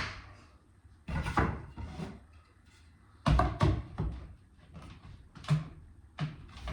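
Wooden knocks and clatter as pine spindles and spacers are set loosely into the groove of a staircase baserail. The knocks come in short clusters, a second or so apart, with brief quiet between.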